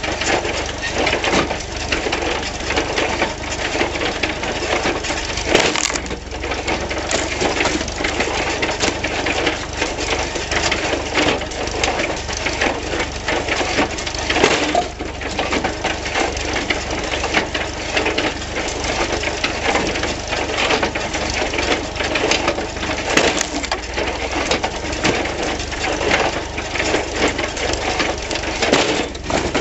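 Log splitter built from a John Deere 14T hay baler, driven off a tractor PTO, clattering rapidly and steadily as its plunger splits hard, stringy firewood, with the tractor running underneath. Three louder bangs stand out several seconds apart.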